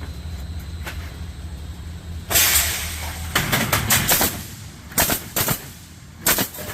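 Woodpecker Junior pallet nailing machine at work: a steady low hum, then a hissing air blast and clusters of sharp bangs as its nail guns fire into the pallet boards.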